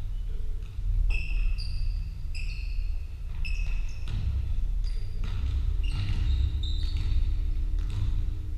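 Basketball bouncing on a wooden court floor, with about eight short, high squeaks of basketball shoes on the boards as players cut and stop, over a steady low rumble from the sports hall.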